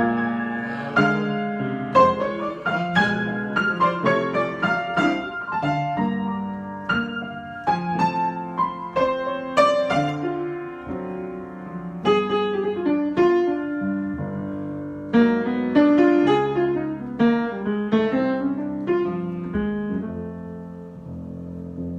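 Solo piano improvisation: a steady flow of struck notes and chords over low sustained bass notes, with quick runs of notes and a softer passage near the end.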